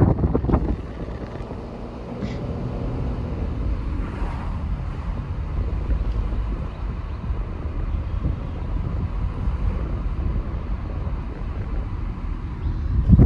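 Wind rumbling on the microphone, with louder gusts at the start and again near the end.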